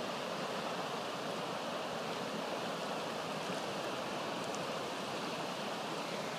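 Fast-flowing river rushing over shallow rapids: a steady, even rush of water.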